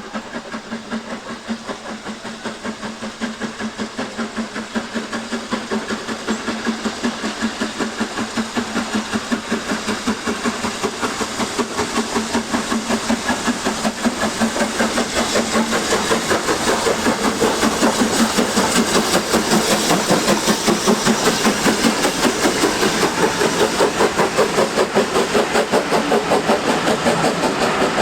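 Steam locomotive exhaust beating in a quick, even rhythm with steam hiss, growing steadily louder as the engine draws closer.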